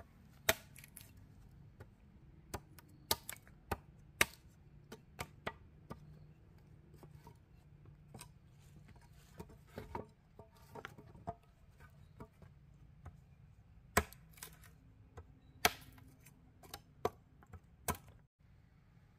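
Machete blade chopping into a green bamboo pole: irregular sharp, woody knocks, a few of them much harder than the rest.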